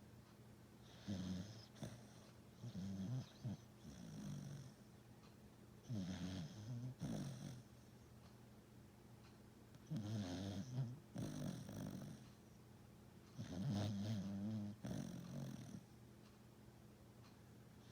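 A sleeping pet snoring faintly: a series of snores, each lasting one to two seconds, with short quiet pauses between them.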